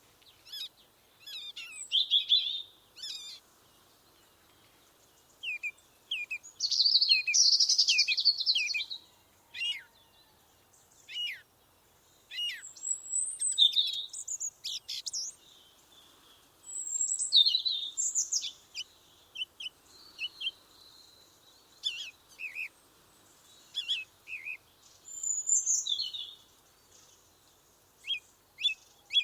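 Songbirds singing: short chirps, trills and whistled phrases come in quick runs, with quiet gaps of a second or two between.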